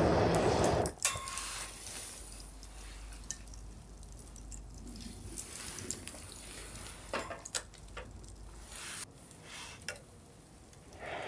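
A rush of breath blown through a fire-blowing pipe into a wood fire, cutting off suddenly about a second in; after that the fire in the small folding fire-pit grill crackles with scattered sharp pops.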